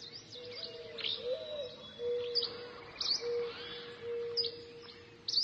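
Birds chirping and calling: short sharp chirps about once a second over a steady lower whistling note.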